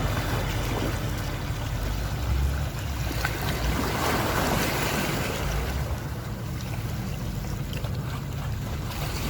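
Sea water washing against the shore with wind buffeting the microphone; the wash swells louder about four seconds in.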